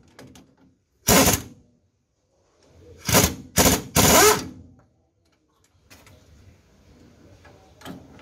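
Würth impact wrench hammering on the flange bolts of a truck's driveshaft universal joint in four short bursts, the last the longest.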